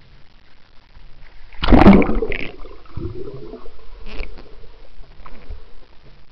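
Pool water splashing and gurgling as a camera is plunged under the surface: a loud splash about two seconds in, then muffled underwater burbling with a few smaller splashes.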